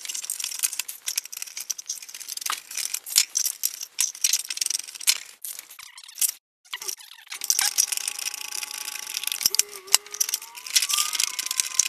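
Handling noise from fitting a plastic 7-pin trailer connector and its multi-wire cable into a sheet-aluminium box: a steady run of small clicks and rattles, with a short pause about halfway through.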